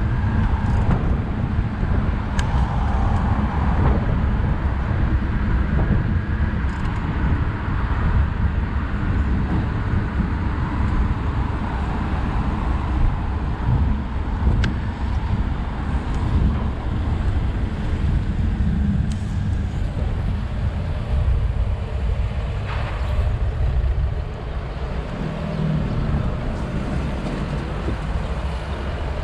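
Road traffic on a busy city boulevard, heard while riding a bicycle along it: cars and buses passing over a steady low rumble, with a few faint clicks.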